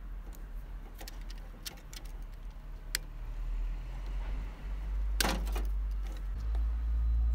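Small clicks and snips of a hand wire stripper taking the insulation off thin wire ends, the loudest a double snap about five seconds in. Under them runs a low steady rumble that swells near the end.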